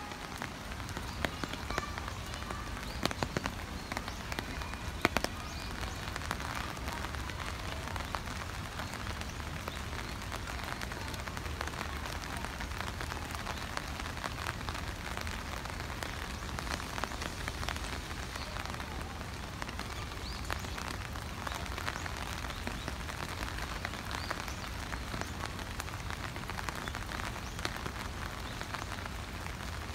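Steady rain falling on wet concrete. It makes an even hiss dense with small drop ticks, with a few sharper ticks in the first five seconds.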